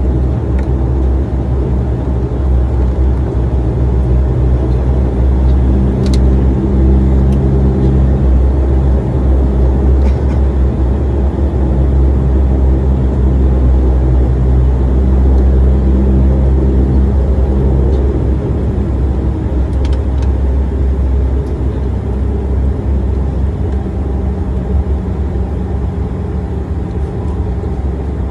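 Turboprop airliner taxiing, heard from inside the cabin as a steady low engine drone with several held low tones. About two-thirds of the way through the tones shift and the drone eases slightly. A few faint clicks sound over it.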